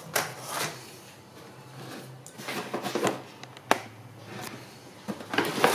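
Handling noises: rustling and light knocks as a corrugated plastic hose is put down, then as a cardboard box is handled, with one sharp click a little before four seconds in. The rustling grows louder near the end as the box is opened.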